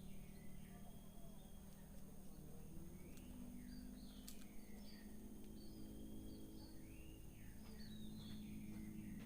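Small caged birds chirping faintly: scattered short, swooping chirps, busiest in the middle and again near the end, over a steady low hum.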